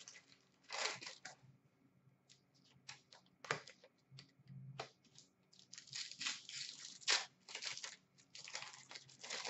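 Hockey trading cards being handled and a pack opened: short irregular swishes of cards sliding against each other and a foil pack wrapper rustling and tearing, with a few light clicks.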